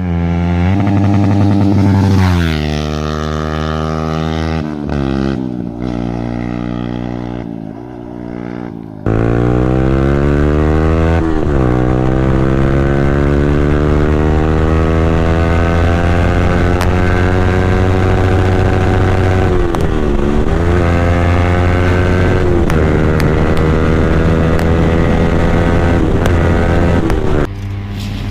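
Yamaha R15 V3's 155 cc single-cylinder engine through an Akrapovic slip-on exhaust with the dB killer removed. The revs rise and fall a few times, then after a sudden jump in loudness about nine seconds in the pitch climbs slowly and steadily, dipping briefly once near twenty seconds.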